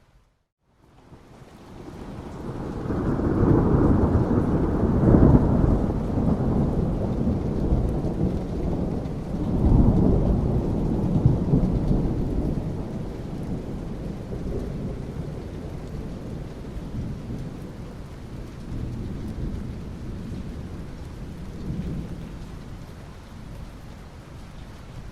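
Thunder rumbling over steady rain. After a brief moment of silence at the start, a deep rumble swells over a few seconds, surges again about ten seconds in, then slowly fades away beneath the rain.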